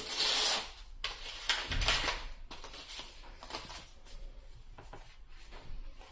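Foil trading-card booster pack crinkling, with two loud rustles in the first couple of seconds, followed by softer clicks and rustles of cards being handled.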